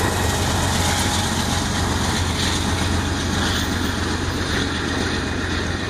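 Diesel-electric locomotive at the rear of a BNSF double-stack container train passing and pulling away: a steady low engine drone over the rumble of the train on the rails, easing off slightly toward the end.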